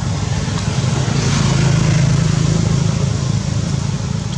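An engine running steadily, a low drone.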